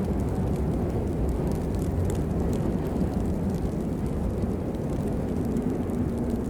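Steady rain, a dense low rush with faint scattered drop ticks over it.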